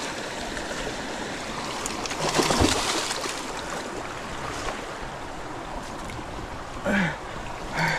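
River water rushing steadily over rocks, a constant noisy wash, with a louder swell about two and a half seconds in and two short falling-pitched sounds near the end.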